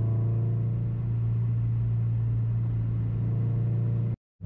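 Scion FR-S / Toyota GT86 flat-four boxer engine running at a steady speed through a free-flowing exhaust, a loud constant drone heard inside the stripped-out cabin. The sound cuts out for a moment near the end.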